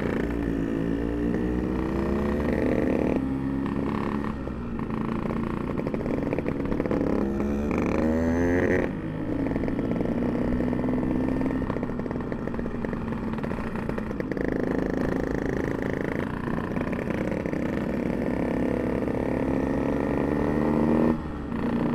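Two-stroke Yamaha RX-King motorcycle engine heard from the rider's seat while riding. Its buzzing pitch climbs several times as the throttle is opened through the gears, and briefly drops off about nine seconds in and again near the end.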